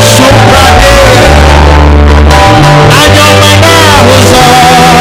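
Loud live church worship music: a band with a strong bass line moving note by note, and a voice singing an Igbo praise song.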